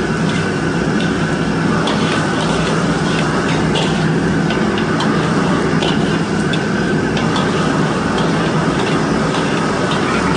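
Commercial wok stove's burner running with a loud, steady rushing noise while a metal ladle scrapes and clacks irregularly against a carbon-steel wok, stir-frying chopped meat and chillies.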